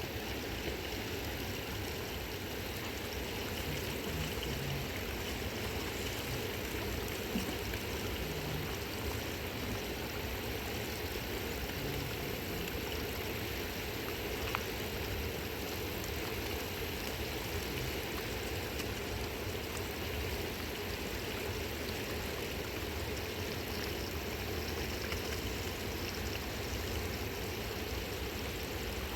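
The Khersan River flowing: a steady, even rush of water.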